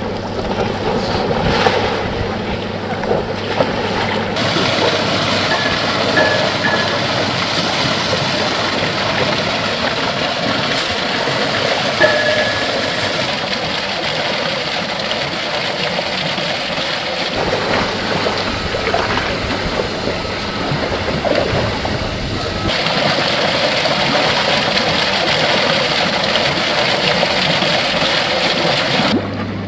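Water splashing and pouring as Asian elephants bathe and play in a shallow pool.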